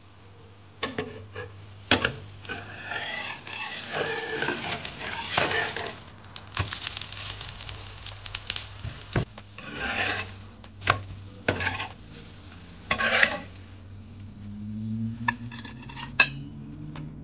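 Metal slotted spatula scraping and knocking against a nonstick frying pan as an oats crepe is loosened, flipped and lifted out. Bouts of scraping alternate with sharp clacks, and one last loud knock comes near the end.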